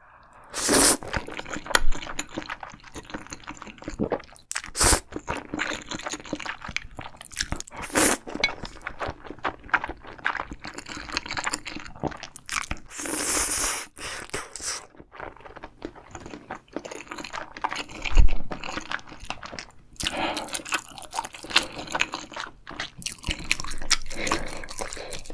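Close-miked eating: a person chewing and crunching food, with many irregular sharp clicks and short wet bursts.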